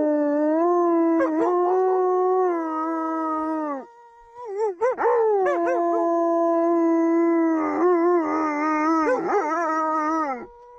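Two wolf-like dogs howling. Long held howls break off briefly about four seconds in, then start again with wavering, yipping notes and overlapping howls, and stop just before the end.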